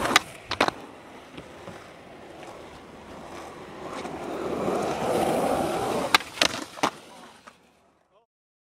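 Skateboard wheels rolling on pavement, getting louder around the middle and peaking just before the board pops and lands. Sharp wooden clacks come about half a second in and again three times after about six seconds. The sound fades out near the end.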